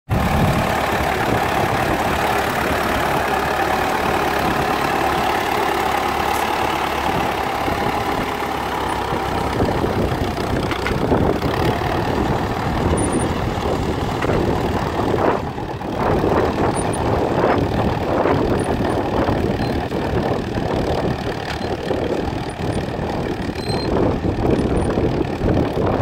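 Fordson tractor engine running steadily under load as it pulls a plough through turf. From about halfway in the engine note grows less distinct and wind buffets the microphone.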